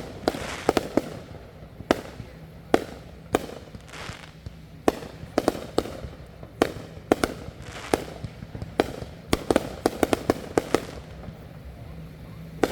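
Consumer fireworks going off: an irregular string of sharp bangs, a second or so apart at first, then a quick run of them about three-quarters of the way through.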